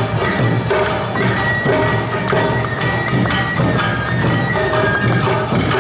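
Awa Odori narimono band playing: a bamboo flute's held melody over rapid, even strikes of the hand-held kane gong and drums.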